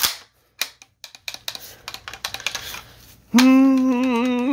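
Light clicks and rattles from the steel action and pump forend of a Stevens 320 12-gauge pump-action shotgun as the forend is worked and wiggled by hand, checking it for wobble over the receiver. About three seconds in, a man hums one long, steady "mmm" that lasts over a second.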